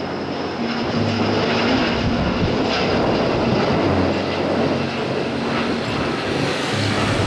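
Rolls-Royce Trent 7000 turbofans of an Airbus A330-900neo at climb thrust just after take-off: a loud, steady jet roar.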